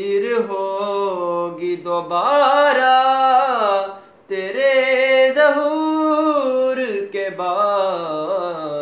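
A young man singing a manqabat (a devotional song in praise of the Imams) unaccompanied, holding long, wavering notes, with a short break for breath about four seconds in.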